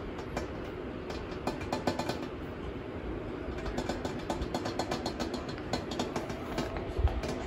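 Shih Tzu eating and licking from a hand: many quick, irregular wet mouth clicks over a steady low hum, with a low bump near the end.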